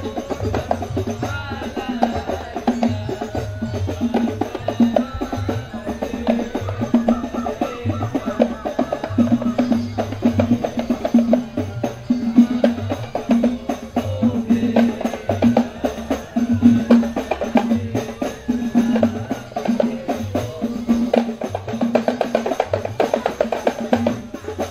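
Hand-held rebana frame drums beaten in a steady, repeating rhythm, with a group of voices singing along.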